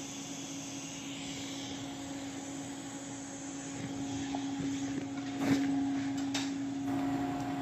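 Steady hum and hiss of a TIG welding setup on stainless pipe, with purge gas flowing, and a sharp metallic click about five and a half seconds in.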